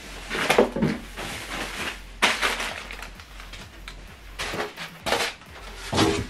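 Unpacking noises: several bursts of rustling and scraping of cardboard and plastic packaging, with a dull knock near the end.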